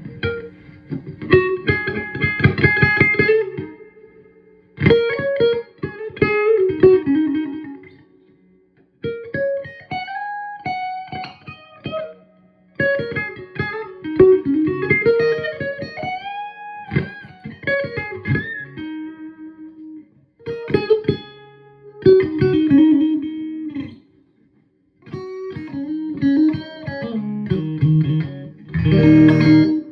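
Electric guitar played through a Vogel AB763 Fender-style tube amp head, in phrases of chords and single notes with string bends, separated by short pauses.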